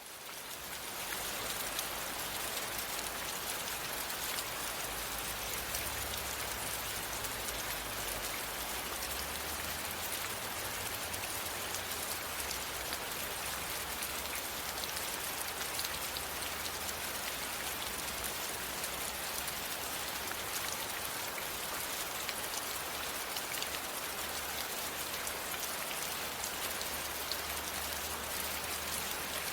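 Steady rain with a dense patter of individual drops, fading in over the first second and then holding at an even level.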